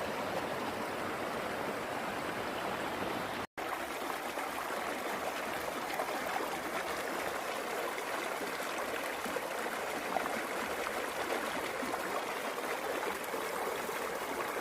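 The Gromotukha mountain river rushing: a steady, even water noise, with a brief break in the sound about three and a half seconds in.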